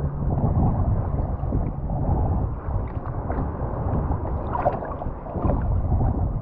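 Small waves sloshing and lapping right at the microphone, with wind rumbling over it, and a few small splashes about four to five seconds in.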